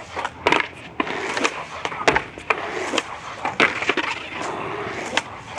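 Skateboard on concrete: the wooden deck clacks and knocks against the ground several times over the rolling noise of wheels, as a flip trick off stairs is attempted.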